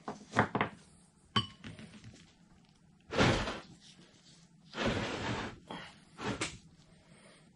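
Hands handling a cast-iron electric motor housing on a wooden workbench: a few light metallic clicks in the first second or so, then heavier thunks and rubbing noises a few seconds in as the motor is moved around.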